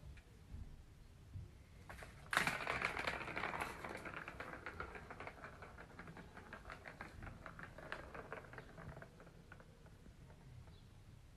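A ball rattling fast around the plastic track of a cat's circuit toy: a rapid run of clicks that starts with a sudden knock about two seconds in, then slows and fades over several seconds.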